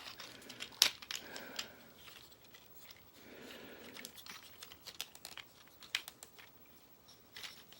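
Small plastic clicks and rattles of a transforming toy robot figure being handled, its tabs pushed into place; the loudest click comes about a second in, with scattered lighter clicks after.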